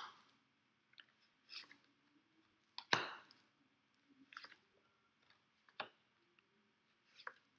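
Fortune-telling cards being drawn from a deck and laid down on a desk mat: faint, short card swishes and slaps, about one every second and a half, the loudest about three seconds in.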